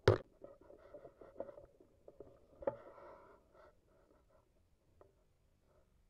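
A sharp click, then scratchy rustling and handling noise with a lighter knock near the middle, fading away over the last couple of seconds. These are the sounds of a scoped air rifle being moved and aimed.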